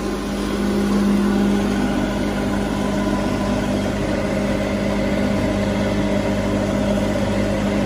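Wood grinding machine (sawdust grinder) running steadily, driven by its electric motor through V-belts. It makes a constant drone with one strong low hum and fainter tones above it.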